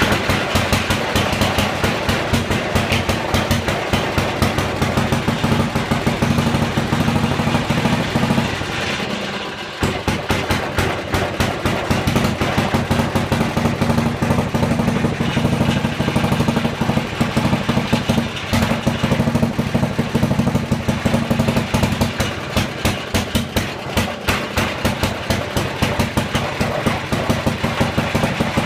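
Briggs & Stratton Model 23D single-cylinder engine running with rapid, even firing strokes after a carburetor repair; its level dips briefly a little over eight seconds in and picks straight back up. It runs without surging, needing only idle fine-tuning.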